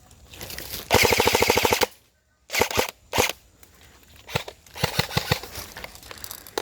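Airsoft gun firing one fast automatic burst of just under a second, evenly spaced rapid shots, followed a moment later by a scattered handful of single sharp snaps.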